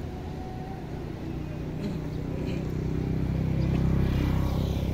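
A motor engine running with a steady low drone that grows louder over the few seconds, as if approaching.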